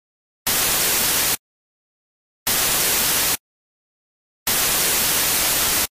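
Three bursts of harsh static hiss, each starting and stopping abruptly with dead silence between them: the first two about a second long, the third a little longer.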